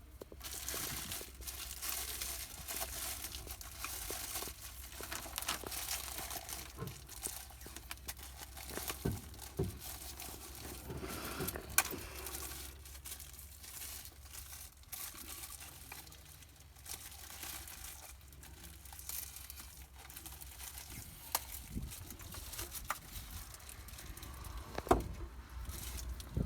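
Plastic wrapping crinkling and rustling as it is handled, with scattered sharp clicks and knocks over a steady low hum.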